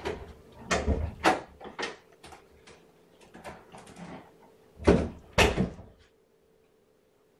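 A run of sharp knocks and clatters, the loudest two close together about five seconds in; then the steady background hum cuts off suddenly about six seconds in.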